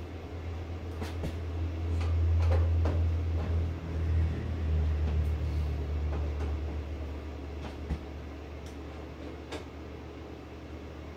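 A steady low hum, louder for a few seconds starting about two seconds in, with scattered light clicks and scrapes from a hand screwdriver turning the screws of a steel breaker-panel cover.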